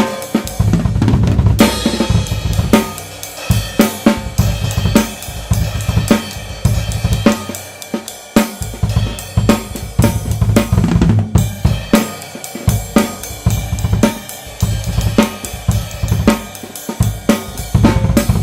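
Tama Swingstar acoustic drum kit with Meinl cymbals being played: kick, snare, hi-hat and cymbals in a continuous rhythmic pattern of dense, regular strikes, as picked up by a Blue Yeti USB microphone.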